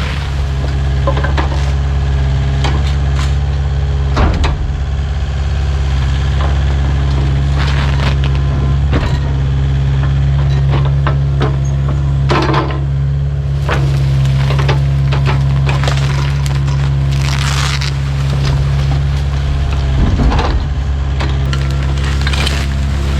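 Kubota U55-4 mini excavator's diesel engine running steadily under load while its bucket crushes and scoops demolition debris, with irregular cracks and splintering crunches of breaking wood scattered through.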